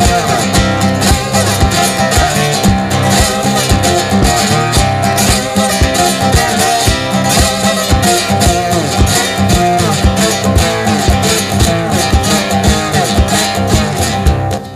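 Bottleneck slide guitar playing an instrumental blues passage: plucked notes glide in pitch over a steady, regular picked beat.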